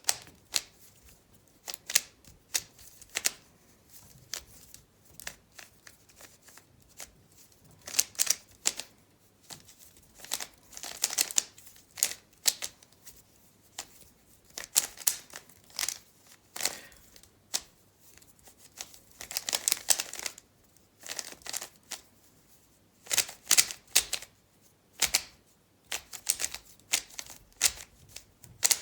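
A speed cube being turned rapidly by hand during a solve: quick runs of plastic clicking and clacking from the layer turns, broken by brief pauses.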